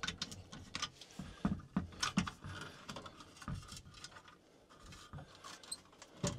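Irregular small clicks and rubbing of wire leads being worked loose and pulled from the terminal strip of a well pump control box.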